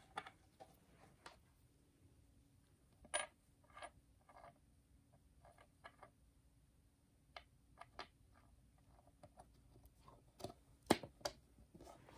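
Faint, scattered clicks and light taps of small metal screws and fittings being handled and set into a particleboard drawer panel by hand, with sharper clicks about three seconds in and near the end.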